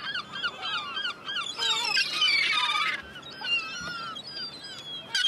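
A flock of birds calling: many short, high calls overlapping in quick succession, densest for the first three seconds and thinning out after.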